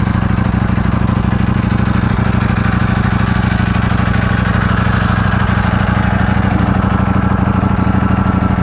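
Ducati Panigale V4S's 1,103 cc Desmosedici Stradale V4 engine idling steadily while it warms up after a cold start.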